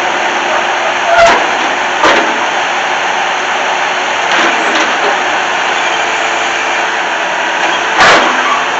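Bobcat 873 skid steer's diesel engine running, a loud steady drone, with sharp clanks about a second in, about two seconds in and near the end.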